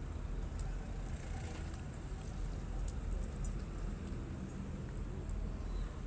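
Steady low outdoor rumble with a few faint light ticks.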